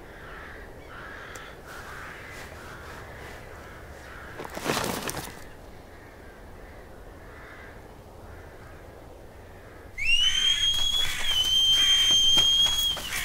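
Crows cawing in the background of a quiet wood. About ten seconds in, a loud whistle starts suddenly and holds one high note for about three seconds.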